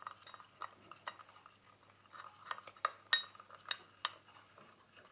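A spoon stirring slime mixture in a bowl, clinking and tapping against the bowl at an irregular pace, most often and loudest a little past the middle.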